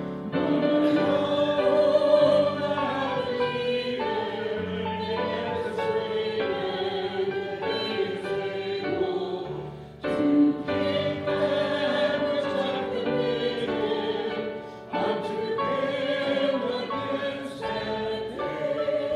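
A slow sung church song with instrumental accompaniment: one wavering melody over held low chord notes. It breaks off briefly about ten and fifteen seconds in.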